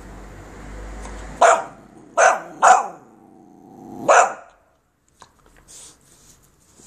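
Boxer puppy barking four times at a devil's coach-horse beetle, three barks close together and a fourth about a second and a half later.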